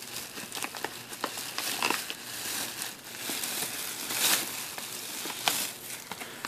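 Plastic cough drop bags crinkling as they are handled, a dense crackle of small clicks that swells louder a few times.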